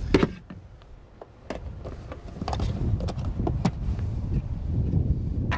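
Plastic floor-rail grommets being prised out with a screwdriver and handled: a series of separate sharp clicks and knocks over a low rumble.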